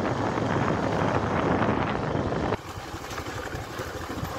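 Motorcycle running on the move, with wind rushing on the microphone. About two and a half seconds in it cuts off suddenly to a quieter, lower engine sound.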